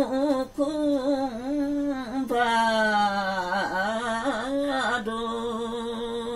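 A woman singing a Limbu Tam:awke (Tamke) folk song solo, with no accompaniment. She sings long held notes that waver and turn in pitch between them.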